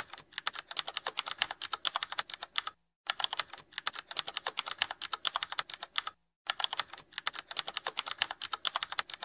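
Computer keyboard typing clicks, a rapid run of keystrokes broken by two short pauses, about three and about six seconds in.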